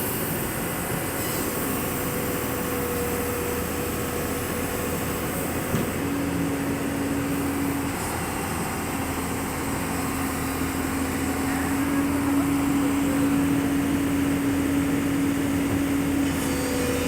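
Excavator's diesel engine running steadily. A steady tone comes in about six seconds in and again from about nine seconds on, and the engine grows a little louder in the second half.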